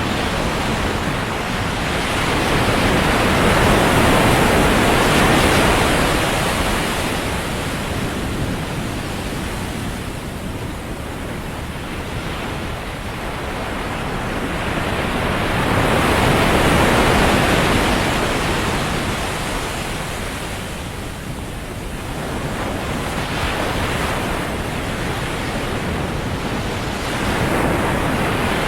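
Ocean surf on a beach: waves breaking and washing up the sand in a steady hiss, swelling loudest twice, about twelve seconds apart, with smaller swells near the end.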